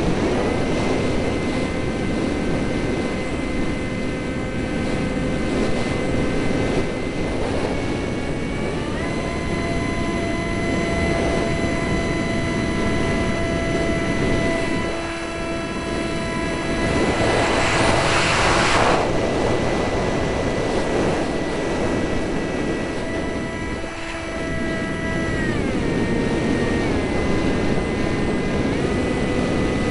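Eurofighter Typhoon's twin EJ200 jet engines whining steadily over a loud rush of noise, the whine stepping up and down in pitch a few times as the throttle changes. About halfway through, a loud swell of rushing noise rises and falls over a couple of seconds.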